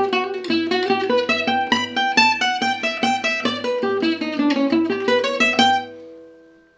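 Acoustic gypsy jazz guitar playing a fast single-note lick, each note picked separately, ending on a held note that rings out and fades about six seconds in.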